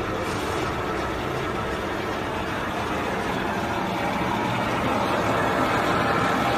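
A 100L vacuum homogenizer mixer running with a steady motor hum made of several steady tones over a noisy background. It grows a little louder about four seconds in, as the machine is being switched over to vacuum.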